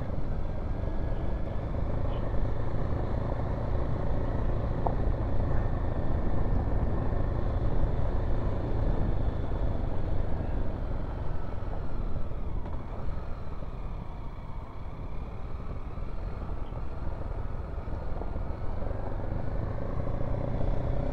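Kawasaki KLX dual-sport motorcycle's single-cylinder engine running at low speed while riding over a rocky track of loose pebbles, with a steady rumble under it. The engine pitch falls off about halfway through and rises again toward the end as the throttle changes.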